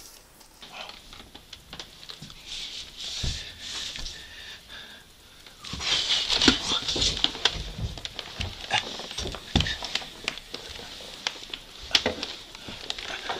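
Handling noise and footsteps: a plastic Nerf Modulus toy blaster is picked up and carried across a wooden floor, with scattered clicks and knocks. A louder rustle comes about six seconds in as it is grabbed.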